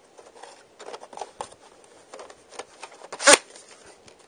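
A VHS cassette and its cardboard sleeve being handled: scattered light clicks and papery rustles, with one sharper knock a little over three seconds in.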